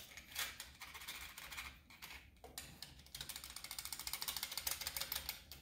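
Slide of a Suzuki Sirius bass chromatic harmonica rattling in quick light clicks as it is worked up and down between the mouthpiece and the comb, with a short pause about halfway through. The rattle is the "goopy slop" of too much clearance between the underside of the mouthpiece and the top of the comb.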